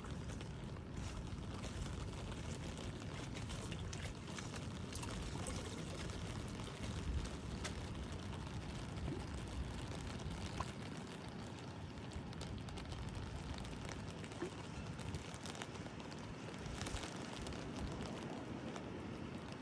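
Rain falling on an umbrella: a steady hiss of rain with many small, scattered drop ticks on the canopy.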